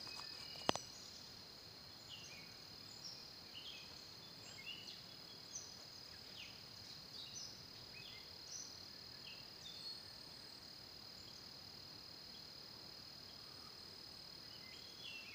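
Faint steady high-pitched insect chorus, like crickets, with scattered short bird chirps over it. A single sharp click sounds under a second in.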